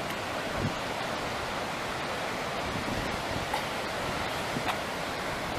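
Steady rushing noise of ocean surf and wind, with a few faint clicks.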